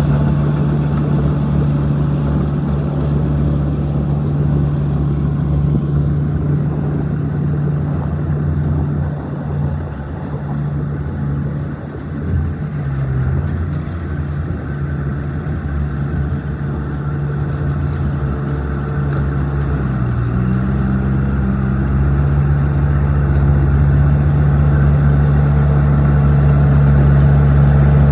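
Old crawler bulldozer's diesel engine running steadily under work. The engine pitch dips briefly about two-thirds of the way through, then picks back up, and the engine grows gradually louder toward the end.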